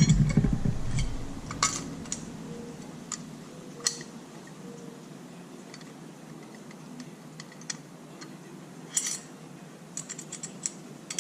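A low thump at the start, then scattered sharp metallic clicks and clinks of hand tools and small metal rearset parts being handled, several in quick succession near the end.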